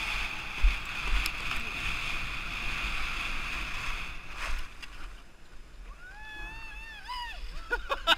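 Skis sliding and scraping over packed snow, a steady hiss with a few bumps. About six seconds in, a person's voice gives one drawn-out call that rises and falls, and talking starts near the end.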